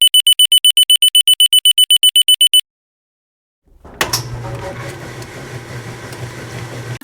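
Smoke detector alarm sounding a rapid run of high, piercing beeps, about nine a second, that stops about two and a half seconds in. From about four seconds a loud, noisy stretch with a low hum follows.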